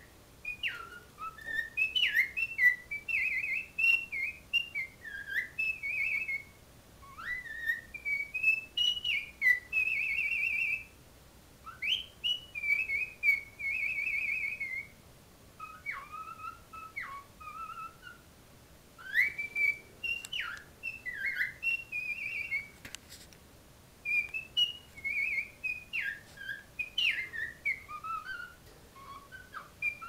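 Pet grey cockatiel singing: phrases of clear whistled notes and pitch glides, with a few rapid warbled trills, broken by short pauses between phrases.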